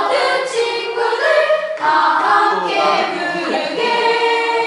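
High-pitched singing voices, with long held notes broken into phrases.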